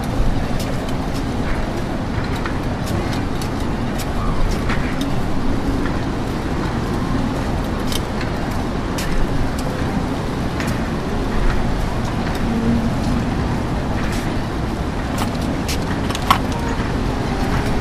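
Steady rumbling wind noise on the microphone with surf behind it, and scattered light clicks.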